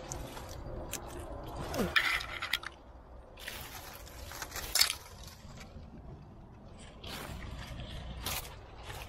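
Irregular scrapes and rustles of a climber moving on rock, with a few sharper scuffs.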